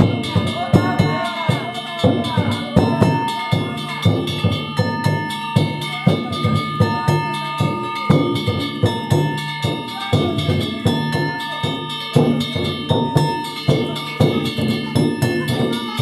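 Danjiri hayashi: drums and small hand gongs (kane) struck in a fast, unbroken rhythm, the gongs ringing on over the drumbeats.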